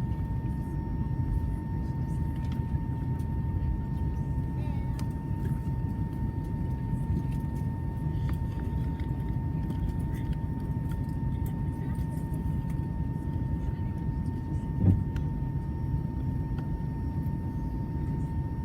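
Airbus A320 cabin noise on the ground after landing: a steady low rumble of engines and air with a thin steady whine over it, and a single thump about fifteen seconds in.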